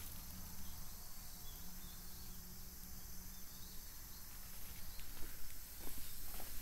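Quiet outdoor ambience with a steady high-pitched insect drone, then footsteps on a concrete path starting about five seconds in.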